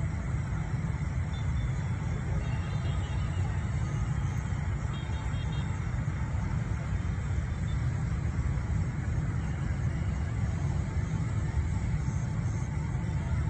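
Steady low background rumble, even and unchanging throughout.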